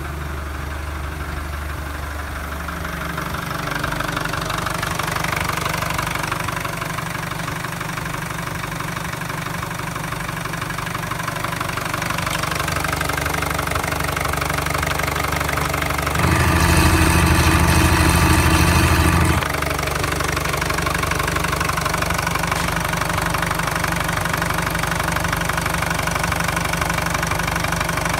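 Nissan YD22DDT 2.2-litre four-cylinder turbodiesel idling steadily at an even pitch. It gets noticeably louder for about three seconds just past the middle, without revving.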